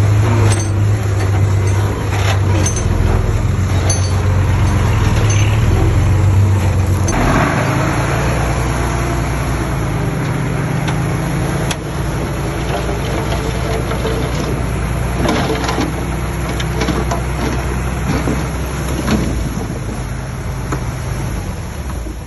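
Diesel engines of earthmoving machinery running steadily. About seven seconds in, the engine note changes and a rush of noise sets in, followed later by a few metallic clanks.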